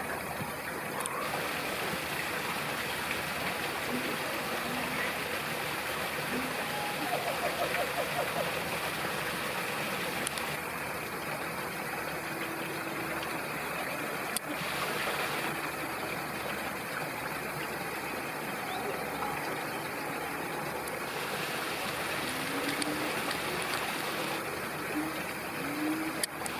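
Steady rushing background noise with faint voices of people in the distance.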